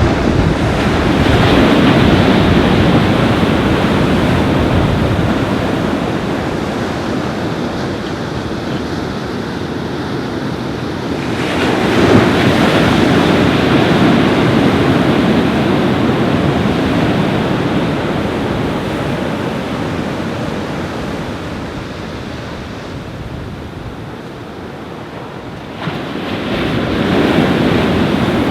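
Surf breaking on a beach in strong wind, with wind buffeting the microphone. The noise swells in three surges, about a second in, around twelve seconds and near the end, and ebbs between them as each wave breaks and washes back.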